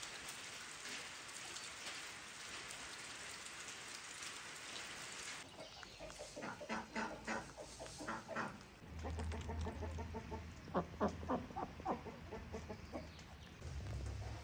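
Steady hiss of rain for the first five seconds or so. Then domestic chickens call in short repeated notes, in two bouts, over a low steady hum.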